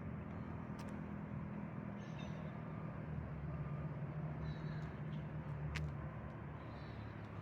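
Steady low hum of a vehicle engine, with a few short, high, mewing gull calls over it.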